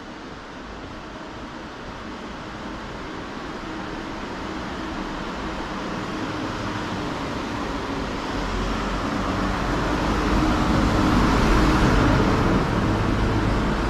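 Garbage truck engine running as the truck drives slowly toward the listener and passes close by. The sound grows steadily louder and is loudest a little before the end.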